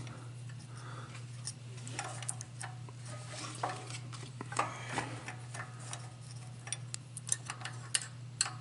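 Light, irregular metallic clicks and clinks of a push rod and stamped rocker arm being handled and seated on a Briggs & Stratton mower engine's cylinder head, coming faster near the end. A steady low hum runs underneath.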